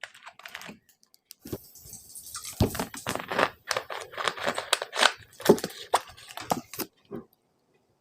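Dense, irregular crackling and crinkling for about five and a half seconds, starting about a second and a half in: close handling noise, like something crinkly being squeezed or rustled.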